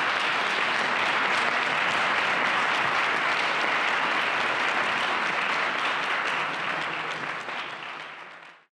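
Audience applauding, a dense patter of many hands clapping, fading away and stopping just before the end.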